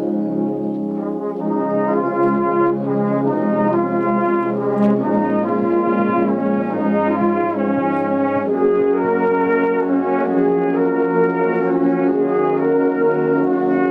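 A brass band playing a piece together: tubas and euphoniums holding a sustained bass under a moving melody in the higher brass.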